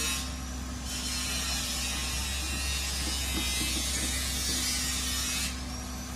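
Excavator running steadily: a low engine hum with continuous mechanical rattling and hiss. The high hiss drops away briefly near the start and again near the end.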